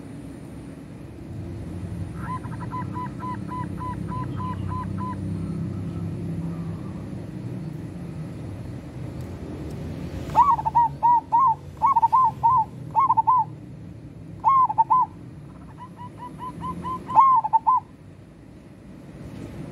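Zebra dove (perkutut) cooing. A run of quick, even notes comes about two seconds in, then from about halfway the bird gives repeated short phrases of rolling, bouncing coos. A low steady hum runs underneath.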